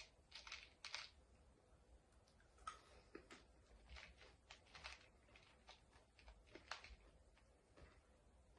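Faint, irregular clicks and light scrapes of chopsticks tapping together and against hard-shelled M&M candies as they try to pick them up.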